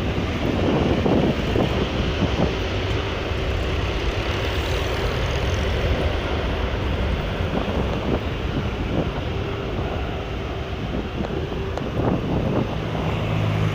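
Jet airliner engines running at a distance on the airfield, heard as a steady rushing noise; a low hum joins near the end.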